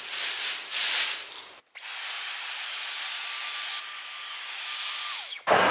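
Dyson cordless stick vacuum, used handheld on fabric sofa upholstery: after some rustling it switches on about a second and a half in and runs with a steady high whine. Near the end it is switched off and the whine falls away, followed at once by a short loud noise.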